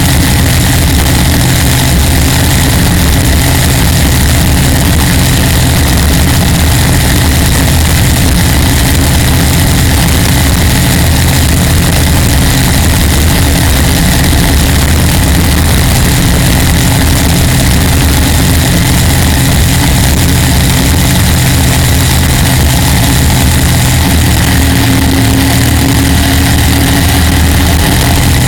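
Chevrolet ZZ4 small-block V8 of an aluminium-hull race boat running hard under way, its 180-degree headers giving it an exhaust note that does not sound like a typical V-8. The engine note holds steady over a constant hiss, shifting slightly near the end.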